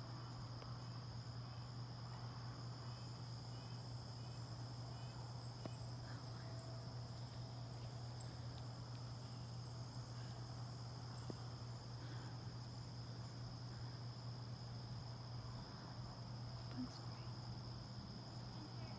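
Crickets and other insects chirring steadily in one even high note, with a higher, thinner buzzing chorus that comes and goes every few seconds, over a low steady hum.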